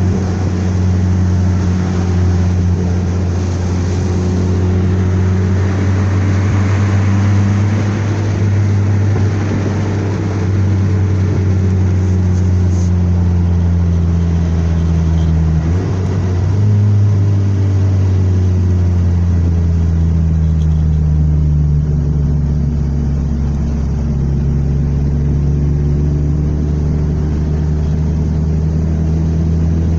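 Car engine running steadily at a constant pitch, dipping and picking up again briefly about 16 seconds in.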